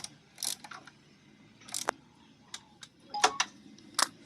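A few scattered, sharp clicks and taps at irregular intervals, the loudest a little past three seconds in.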